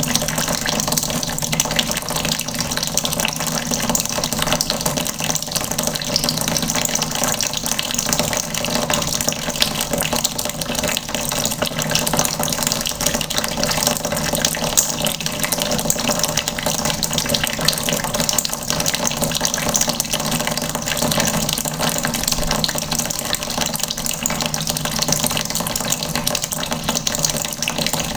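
Water running steadily from a tap and splashing into a bucket.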